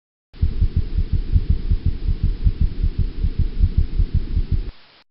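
Recorded heart sounds played back: a quick, even run of low, muffled thumps that starts about half a second in and cuts off abruptly near the end.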